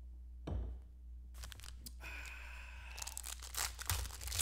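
A sports-card pack's wrapper being torn open by hand, crinkling and then tearing in a rapid run of rips near the end. A thump about half a second in.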